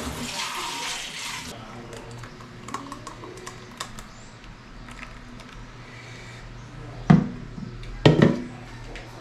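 Kitchen tap water running into a stainless steel sink, shut off about a second and a half in. Then small clicks and knocks of a container being handled, with two louder clunks near the end.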